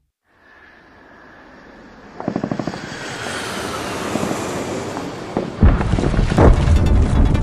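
Produced intro sound effects: a swelling roar that builds for several seconds, with a rapid pulsing chop about two seconds in, then heavy low booms from about five and a half seconds.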